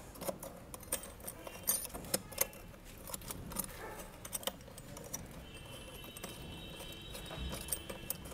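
Light, irregular metallic clicks and rattles as a cigarette-lighter socket's threaded metal mounting sleeve is handled and screwed on through a plastic panel by hand.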